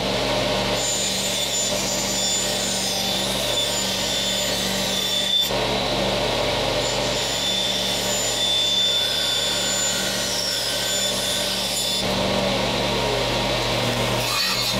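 Band saw running and cutting a piece of wood, a steady machine hum under the rasp of the blade. About twelve seconds in, the sound changes to a combination belt-and-disc sander running.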